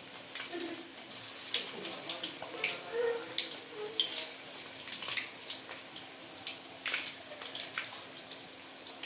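Flour-coated chicken pieces deep-frying in hot oil, a steady sizzle full of irregular crackles and pops, as more pieces are lowered into the oil.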